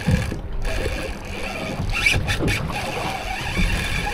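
Wind on the microphone and water against the hull of a small boat on open sea: a steady rushing noise with low buffeting.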